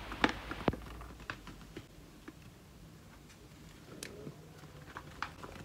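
A plastic yogurt pot scooping flour and tapping against a plastic mixing bowl: scattered light taps, scrapes and clicks, the sharpest within the first second.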